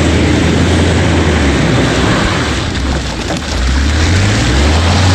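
Ford F-150 pickup's engine revving hard as it drives through mud, tyres churning and flinging mud and debris with a dense spattering hiss. The revs dip about three seconds in, then climb again as the truck passes close by.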